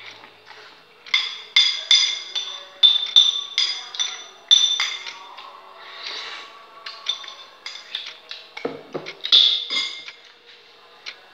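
Metal spoon clinking and scraping against a ceramic bowl while scooping up noodles: a quick, uneven run of sharp, ringing clinks. A few duller knocks come near the end as the bowl is set down on the wooden table, followed by more clinks.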